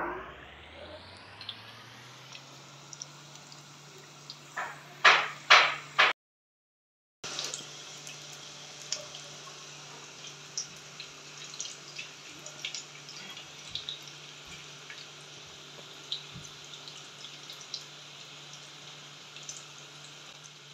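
Samosas deep-frying in a pan of hot oil, sizzling with many small crackles and pops. Three loud knocks come about five seconds in, followed by a brief dropout.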